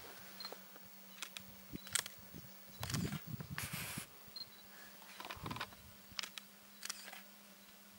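Camera handling noise: scattered soft clicks and a couple of brief rustling bursts over a faint steady hum.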